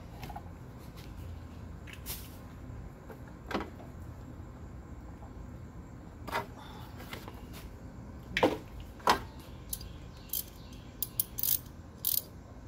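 Spark plug wire boots being pulled off the plugs of a minivan's V6 by hand: scattered snaps and clicks, the two loudest about eight and nine seconds in. Near the end a quicker run of light clicks as a ratchet with a spark plug socket is handled.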